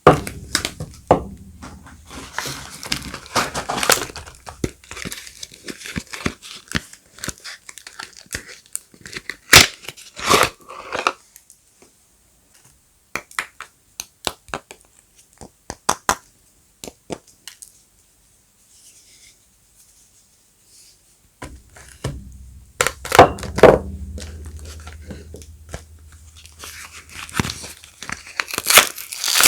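Soap bar wrappers being handled, crinkled and torn open by hand: irregular crackling and tearing, busy for the first ten seconds or so, thinning to scattered crinkles and going almost quiet about two thirds of the way in, then picking up again near the end.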